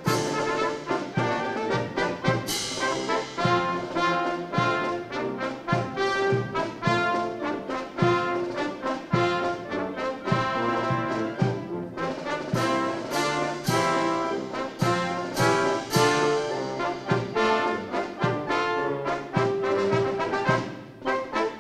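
Military brass band playing a march with a steady beat.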